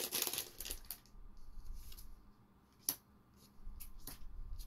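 Foil booster-pack wrapper crinkling for about a second as the trading cards are pulled out, then cards being flipped through by hand, with a few sharp clicks as they snap against each other.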